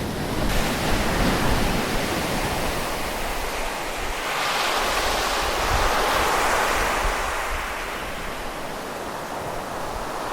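Ocean surf: waves breaking and washing in as a continuous rush of water, swelling about halfway through and easing off near the end.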